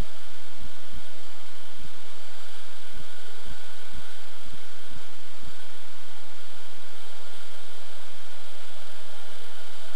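V-tail octocopter's eight electric motors and propellers droning steadily overhead, a hissing hum with a few steady whining tones. Short low thumps come and go, most of them in the first half.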